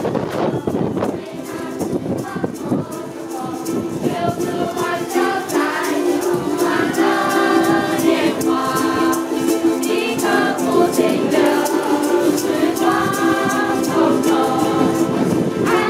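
A group singing together while strumming ukuleles, the strums keeping a steady beat under the held sung notes.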